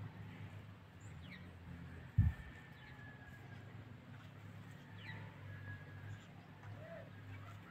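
Birds chirping with short, high falling calls and brief whistles over a steady low hum, with one brief low thump about two seconds in.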